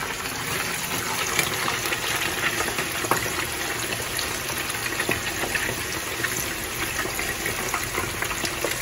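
Tamban (small sardine-like fish) deep-frying in a pan of hot oil: a steady sizzle with many small pops and crackles as more fish are dropped in.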